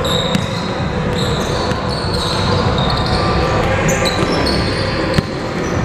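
Basketball bouncing on a hardwood gym floor with sneakers squeaking as players move, a sharp knock standing out about five seconds in.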